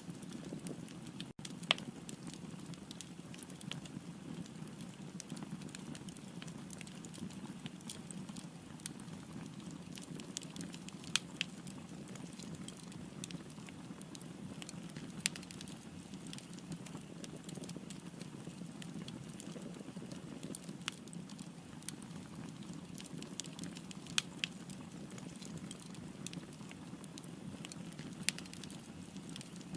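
Wood fire crackling: a steady low rush of flames with sharp pops and snaps at irregular intervals, a few of them louder than the rest.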